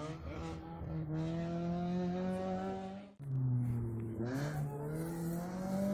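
Rally car engine revving under load, its pitch climbing steadily. About three seconds in it breaks off sharply and comes back lower, then climbs again.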